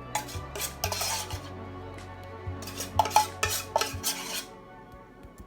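Utensils and dishes clinking and knocking in two short bunches, with a scrape or two, as seasoning is handled in a bowl and pan, over faint background music.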